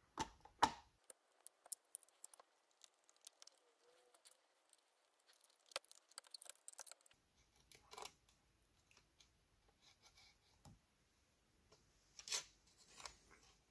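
Faint, scattered small clicks and light scrapes of a Surface Pro 4 motherboard being worked loose and lifted out of the tablet's metal chassis by hand, with a few sharper clicks near the end.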